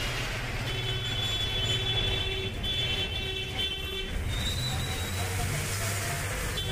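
Busy street traffic: vehicle engines running under a steady rumble, with horns honking several times in short toots during the first half and once more a little later.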